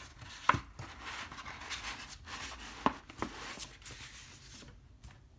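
A folded paper poster rustling as it is handled and opened out, with three sharp clicks of the paper: the loudest about half a second in, two more around three seconds in.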